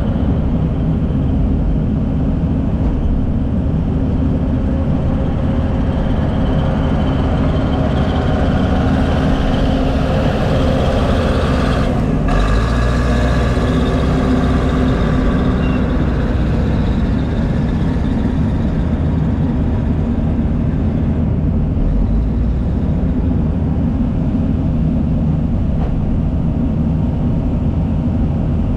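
Heavy diesel earthmoving machinery, a crawler dozer and an excavator, running steadily under work, with one brief sharp knock about twelve seconds in.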